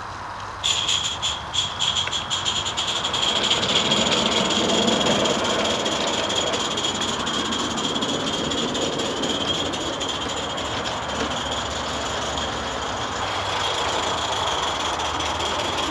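Coal-fired Mamod live-steam locomotive running: it starts abruptly about half a second in with quick irregular puffs, then settles into a steady high steam hiss.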